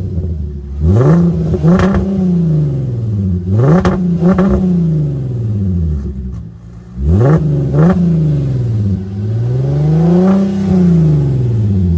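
VW Atlas 3.6 L VR6 engine free-revved through an open exhaust with the muffler section disconnected. Three pairs of quick blips climb sharply in pitch and fall back, then one slower rev rises and falls near the end.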